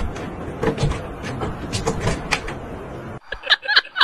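Cat pawing and scrabbling at a wooden wardrobe door and its round knob: a string of clicks, knocks and rattles as it works the door open. Near the end the sound cuts abruptly to short bursts of laughter.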